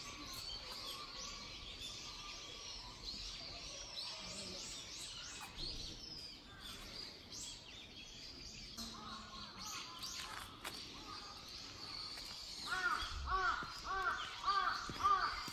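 Birds chirping and twittering with a steady outdoor background hiss; about two-thirds of the way in, a louder, rapid series of short arching calls, about three a second, starts up and becomes the loudest sound.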